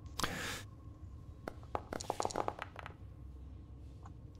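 Dice being rolled on a tabletop for a skill check: a brief rustle, then about a second of light, irregular clattering clicks.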